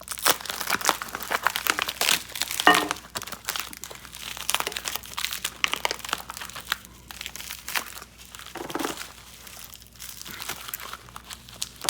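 Packaging being crinkled and rustled as the crash-guard parts are unwrapped and handled, in irregular crackling bursts.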